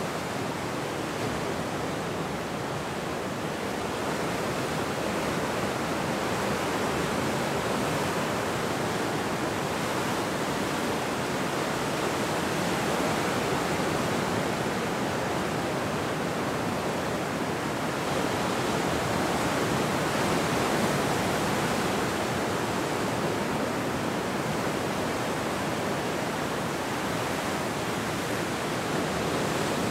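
Ocean surf breaking and washing along a rocky shore: a continuous rushing wash that swells gently in loudness every several seconds as waves come in.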